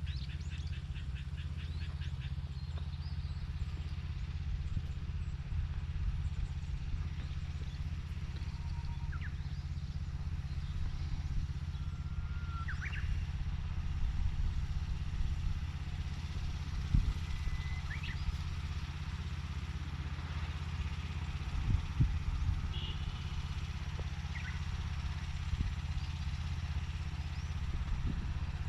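Small engine of a vegetable-seedling transplanter running steadily, with a few sharp knocks from the machine now and then. Birds chirp briefly at intervals.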